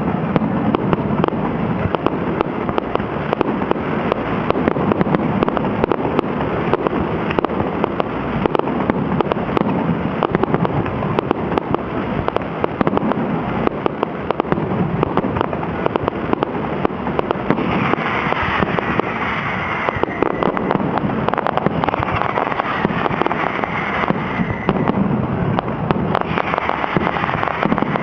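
Fireworks finale: a dense, continuous barrage of aerial shell bursts and crackling, with booms and pops following one another without a break. There is a brighter hissing stretch about two-thirds of the way through and another near the end.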